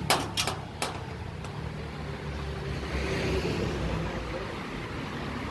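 Three sharp knocks from a steel gate in the first second, then a steady low rumble of road traffic.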